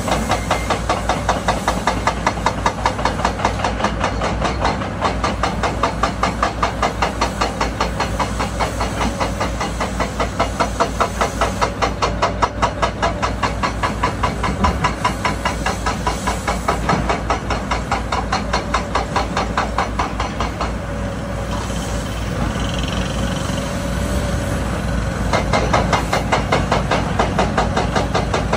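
Heavy diesel construction machinery running with a fast, even knocking beat over a steady hiss; the knocking eases for a few seconds about three-quarters of the way through, then comes back.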